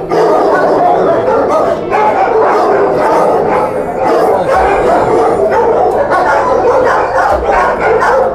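Shelter dogs barking, many barks overlapping with hardly a break, loud and echoing in a kennel block of metal runs and hard floors.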